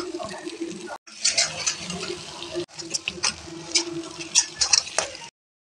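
Mutton pieces frying in hot oil in a kadai, with dense sizzling and crackling over a faint steady hum. The sound breaks off briefly twice and cuts off shortly before the end.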